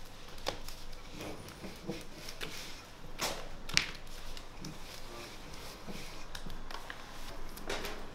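Dough being patted and slapped flat by hand on a floured work table, with scattered soft taps and one sharp knock near the middle as the wooden rolling pin is picked up and set against the table.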